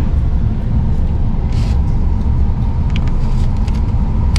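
Steady low rumble of a double-decker passenger train running, heard from inside the coach, with a faint steady hum. A short hiss comes about a second and a half in, and a few light clicks near the end.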